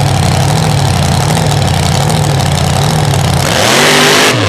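Mega mud truck's supercharged, alcohol-injected 509 cubic inch big-block Chevy V8 idling with an uneven beat, then revving hard about three and a half seconds in as the truck spins its tires in the dirt, easing off briefly near the end.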